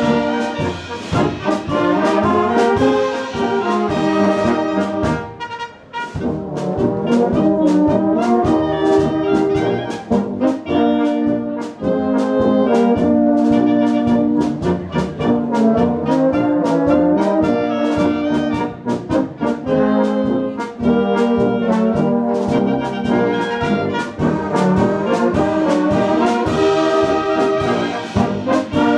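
Bohemian-style brass band playing live: trumpets and trombones carry the melody over a steady beat. There is a brief break about six seconds in.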